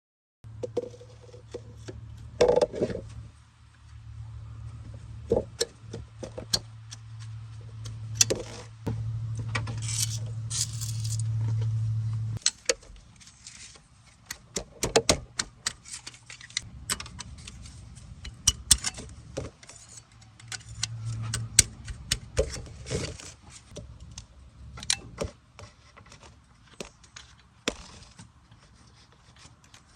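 Hand work on a car's gear selector cable and its bracket: small metal parts clicking, rattling and scraping in irregular bursts. A steady low hum runs underneath and stops suddenly about twelve seconds in.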